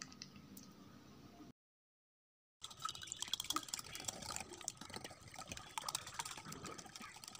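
Raw eggs and sugar being beaten by hand in a glass bowl: the utensil clicks and scrapes rapidly against the glass while the liquid mixture sloshes. It starts after a short silent gap about two and a half seconds in.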